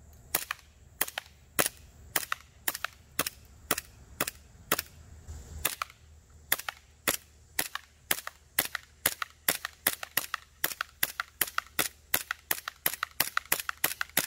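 Jag Arms GMX1B Hi Capa green-gas blowback airsoft pistol firing a long string of shots, each a sharp crack. The shots come about two a second, pause briefly about six seconds in, then quicken to three or four a second near the end.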